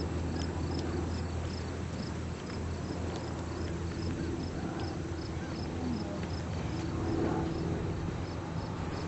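Crickets chirping steadily, about three short high chirps a second, over a low steady hum.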